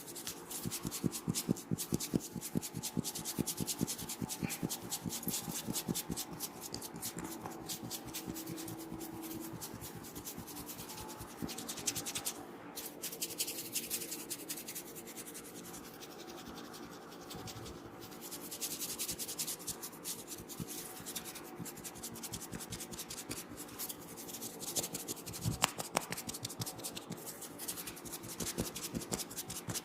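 Hands massaging a head, fingers scratching and rubbing fast through the hair and over the scalp, in quick close strokes that ease off a little midway and then pick up again.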